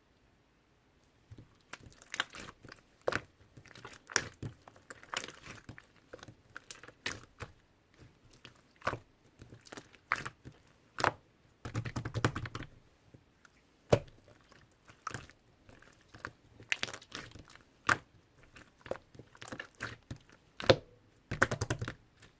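Slime being squeezed and worked by hand, making sharp pops and crackles at irregular intervals, with denser runs of crackling about halfway through and near the end. It begins after about a second of near silence.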